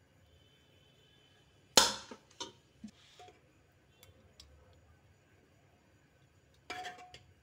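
Serving spoon clinking and knocking against a ceramic plate while rice and dal are served: one loud clink a little under two seconds in, a few lighter knocks after it, and another short cluster of clinks near the end.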